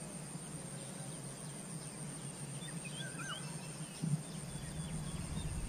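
Faint open-air ambience: a low steady hum, a thin steady high whine, and a few short bird chirps around the middle, with a soft knock about four seconds in.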